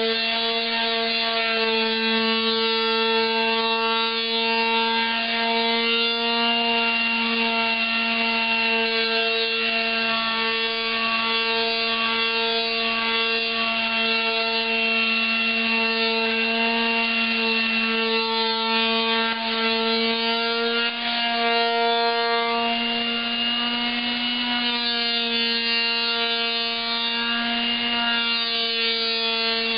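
Electric palm sander running with coarse sandpaper on a wooden drawer top, stripping the old finish. It makes a steady motor hum over the scratch of the sandpaper.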